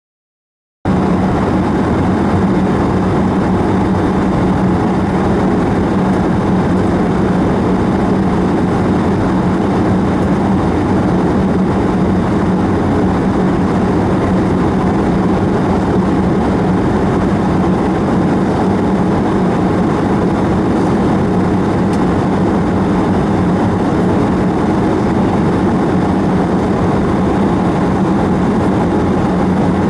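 Airbus A320 cabin noise in flight, heard from a window seat: jet engines and rushing airflow make a steady, loud drone with a constant low hum. It cuts in abruptly about a second in.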